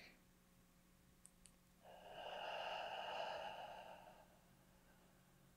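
A person's slow, deep breath out, lasting about two seconds, preceded by two faint clicks.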